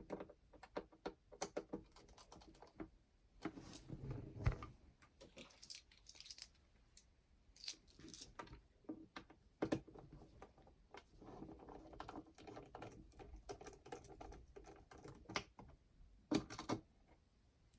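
Irregular light clicks, taps and scrapes of a small screwdriver working tiny screws out of a clock radio's plastic housing, with parts being handled between turns.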